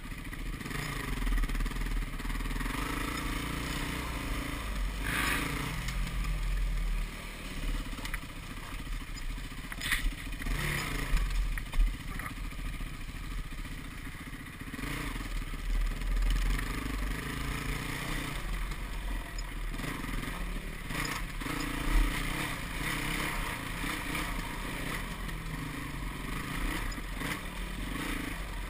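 Yamaha WR450F's single-cylinder four-stroke engine running under way on a dirt trail, its revs rising and falling with the throttle. A few sharp knocks are heard now and then.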